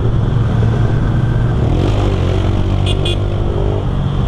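Motorcycle engine running steadily while riding in traffic, with wind rushing on the helmet camera's microphone. About three seconds in, two short high chirps sound close together.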